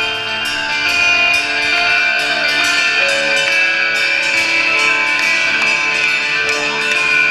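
Live rock band playing: electric guitars holding ringing chords over a steady beat of sharp hits, loud throughout.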